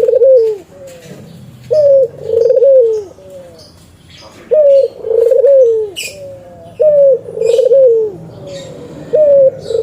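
Spotted dove (tekukur) cooing its three-part call over and over, about four times, each phrase roughly every two and a half to three seconds: a rising note, a rolling burr, then a falling note.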